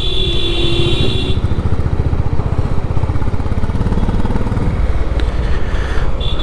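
Honda CB350 RS single-cylinder engine running steadily while being ridden, its exhaust pulsing evenly. A high-pitched buzz sounds over it for about the first second and then stops.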